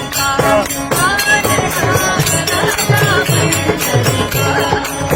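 Devotional song to Vitthal: a singer's melodic, ornamented voice over a steady beat of jingling hand percussion.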